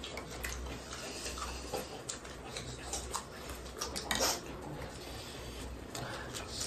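Close-up eating sounds: scattered wet clicks and smacks of chewing, with a metal spoon clinking against a ceramic soup bowl. The loudest clatter comes about four seconds in.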